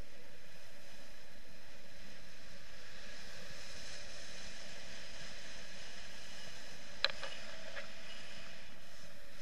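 Steady rush of airflow over an action camera's microphone during paraglider flight. Late on there is one sharp click, then a couple of fainter ticks.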